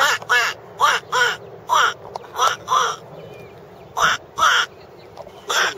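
A person quacking to call ducks: about nine short, harsh quack-like calls, several in pairs, loud and close.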